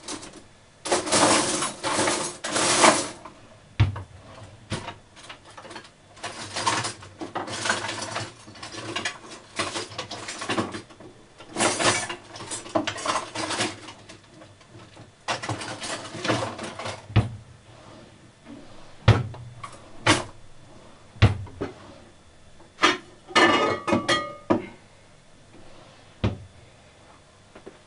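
Rummaging among kitchen utensils and dishes: bursts of clattering and rattling, with single sharp knocks scattered through it.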